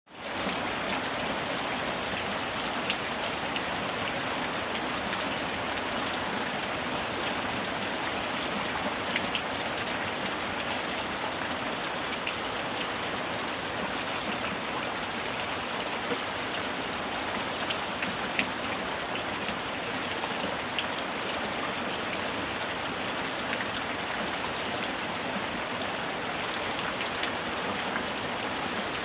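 Waterfall: falling water rushing in a steady, even hiss, with now and then a faint splash or drip standing out.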